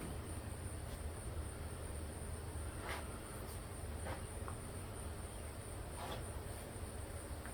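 A few faint, short clicks and knocks of hand work on the car door's window and latch hardware, over a steady high-pitched whine and a low hum.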